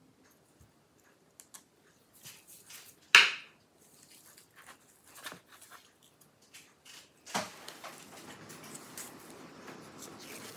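Handling noise as gloved hands work a laptop and hand tools on a wooden desk: light clicks and rustles, a sharp knock about three seconds in and another hit about seven seconds in, then a faint steady hiss.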